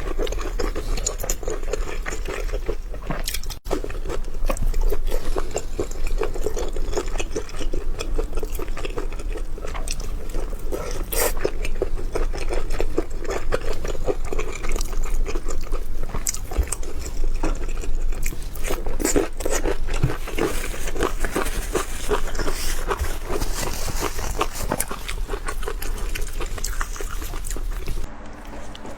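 Close-miked mouth sounds of a person biting into and chewing large steamed dumplings, a continuous run of soft clicks and smacks.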